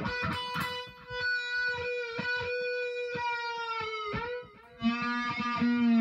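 Stratocaster-style electric guitar played solo: one long sustained high note rings for about four seconds with short picked notes under it. After a brief break, a lower note is struck and held near the end.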